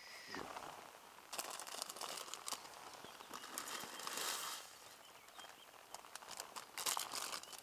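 A small packet crinkling as it is handled, in several short rustling bursts.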